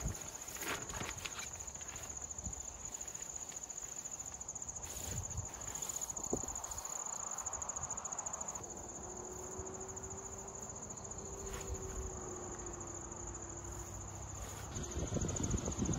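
Insects chirring in a steady, high-pitched trill. Light clicks and rustles of gear being handled come near the start, and more rustling near the end.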